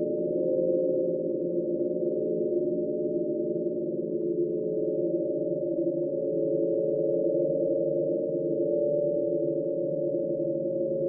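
Ghost sound effect: several low tones held together in a continuous drone, wavering slowly in pitch at a steady level.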